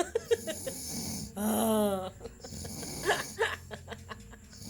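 A person snoring in their sleep: one loud, pitched snore about a second and a half in, with the tail of another at the very start. Softer, short sounds follow about three seconds in.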